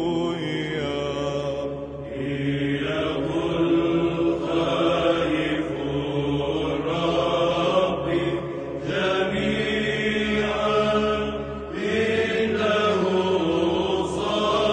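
Slow religious chanting by voices over a steady held low note.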